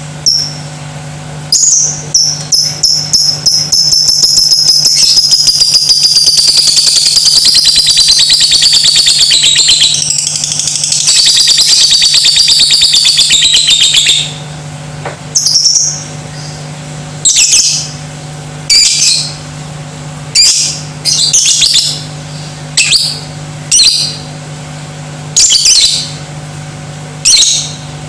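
Lovebird in long 'ngekek' chatter: a few short shrill calls, then a fast rattling trill lasting about ten seconds that slides slightly down in pitch, then single sharp shrieks about once a second.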